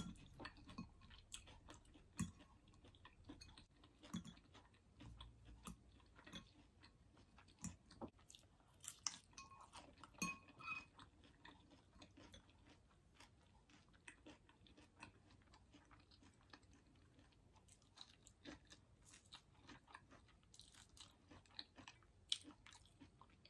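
Faint chewing and crunching of a leafy salad, with scattered soft clicks and taps of a fork against a glass bowl.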